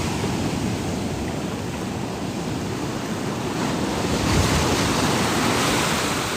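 Ocean surf washing onto a beach, swelling louder as a wave breaks about four seconds in, with wind buffeting the microphone.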